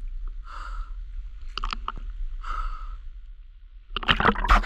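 Slow, regular breaths through a snorkel, about one every two seconds, with a few small clicks between them over a low steady rumble of water. About four seconds in comes a loud burst of splashing and water noise.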